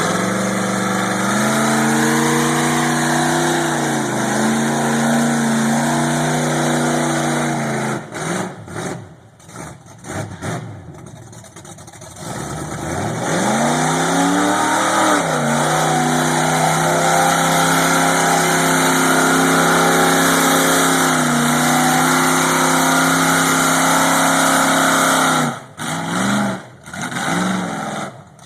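350 Chevy small-block V8 in a 1979 Toyota, newly installed and being broken in, revving and held at high revs for several seconds, easing off, then revved back up and held again for about ten seconds before dropping with two short blips near the end.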